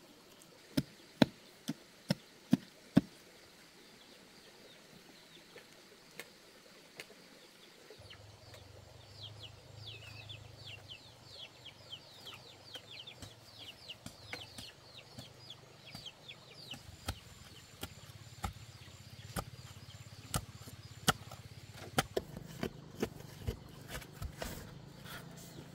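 Sharp knocks of digging work in soil. About six come in quick succession at the start, and more follow about once a second in the second half. In between, a bird calls a rapid run of short, high, falling notes.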